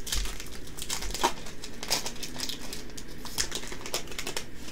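Foil Yu-Gi-Oh booster pack crinkling as it is torn open by hand and the cards are pulled out: a quick, irregular run of crackles.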